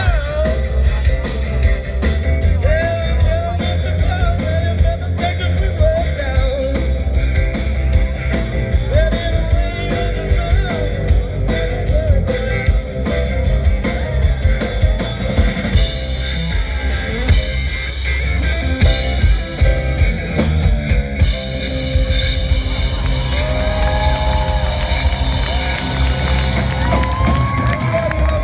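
Live rock band playing: drum kit, bass and guitar, with a singer's voice carrying the melody.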